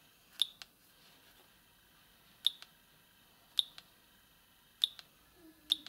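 Keys of a Siemens M55 mobile phone being pressed, five sharp clicks about a second apart, several followed at once by a softer second click.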